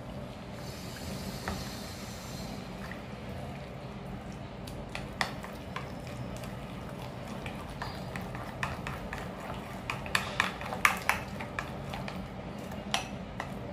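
Metal spoon stirring a thick gram-flour (besan) batter in a bowl: wet squelching with scattered clicks of the spoon against the bowl, coming faster and louder near the end.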